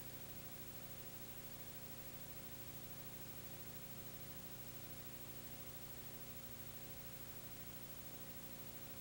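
Steady hiss with a low electrical hum underneath, unchanging throughout, and no other sound: the background noise of the recording itself.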